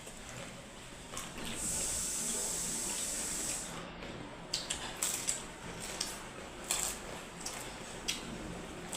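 Eating papri chaat: a steady high hiss for about two seconds, then a string of sharp clicks and crunches from spoons on plates and crisp papri being chewed.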